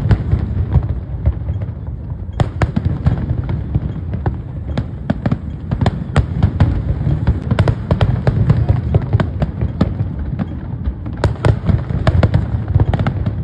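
Aerial fireworks bursting in rapid, irregular succession: many sharp bangs and crackles over a continuous low rumble of booms.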